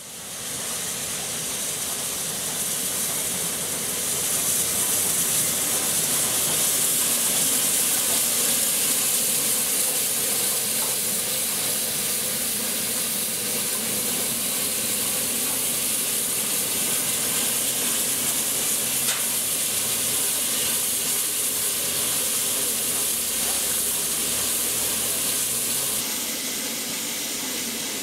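Peppercorn A1 class steam locomotive 60163 Tornado moving slowly past, giving off a loud, steady hiss of steam, then its coaches rolling by near the end.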